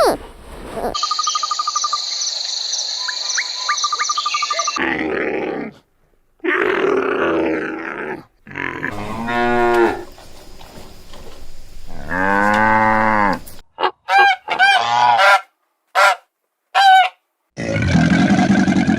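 Cattle mooing in a string of separate clips with short gaps between them: several long, drawn-out moos, then a run of short, higher calls, then another moo near the end. Before the first moo, for the first few seconds, there is a steady high-pitched ringing.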